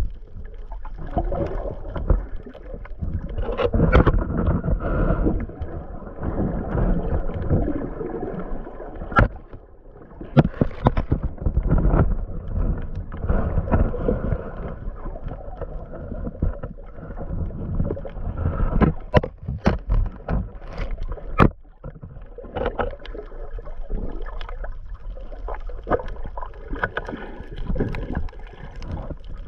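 Muffled water noise heard through a GoPro Hero 8's microphone held under water while snorkeling over a reef: an irregular sloshing and rushing that swells and fades, with a few sharp clicks.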